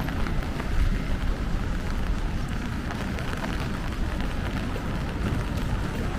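Steady rain falling, with many small scattered drop ticks over a continuous low rumble.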